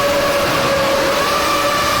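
Formula One car's 2.4-litre V8 engine running hard at high revs, a loud high-pitched whine that holds one steady pitch, edging slightly higher about a second in.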